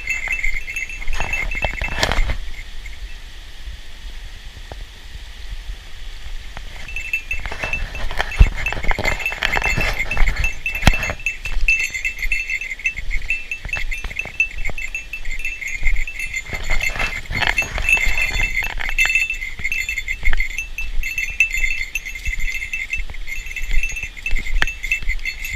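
A small metal bell jingling steadily, in time with walking, with knocks of steps on stones under it; the jingling stops for a few seconds early on, then resumes.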